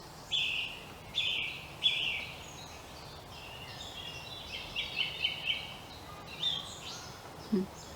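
A songbird singing a string of short, high, chirpy phrases with brief pauses between them, over a faint background hush.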